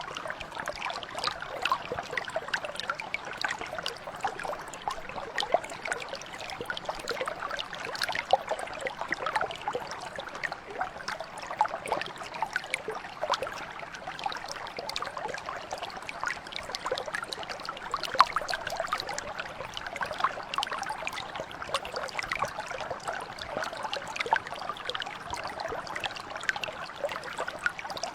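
A shallow mountain brook flowing steadily, water trickling and splashing over stones, with many small quick splashes and no change throughout.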